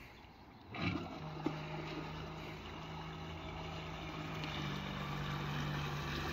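Electric outboard motor (a 2 kW electric motor built into a 6 hp Suzuki outboard housing) starting up about a second in and then running with a steady hum, a second, higher tone joining after about four and a half seconds as it gets a little louder.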